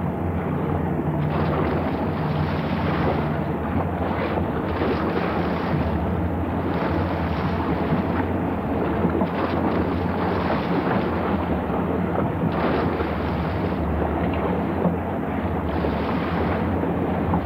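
Boat engine running steadily, a constant low hum, under wind blowing on the microphone.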